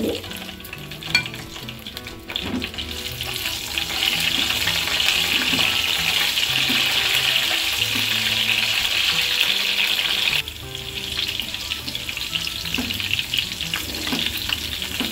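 Green chillies sizzling in hot oil with a tempering of mustard seeds, chana dal and cumin, stirred with a silicone spatula. The sizzle swells a few seconds in and drops off suddenly about two-thirds of the way through.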